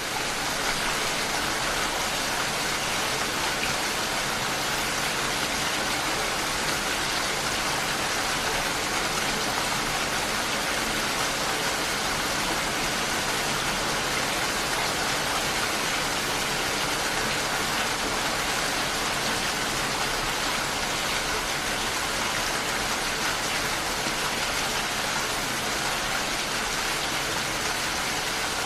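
Steady rain: an even, unbroken hiss of falling rain.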